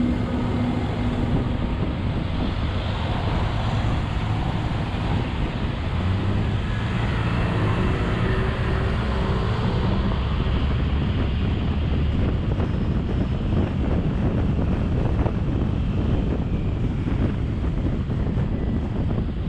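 Steady road traffic noise, engines rumbling and tyres hissing, with wind buffeting the microphone.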